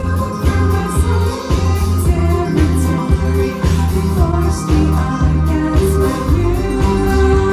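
Live synth-pop band playing: a heavy bass line and a steady drum beat, with synth and accordion, and female singing over them.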